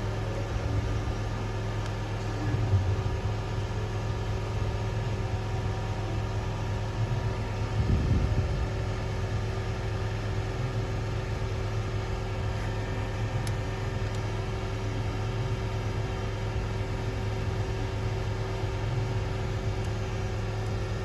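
Porsche 996 Carrera 4S flat-six engine idling steadily, being checked for a suspected vacuum leak, with a couple of brief louder bumps.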